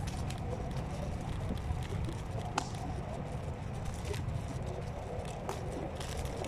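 Electric scooter rolling along a forest path: a steady low rumble of wheels and wind, with scattered small clicks and crackles from the ride.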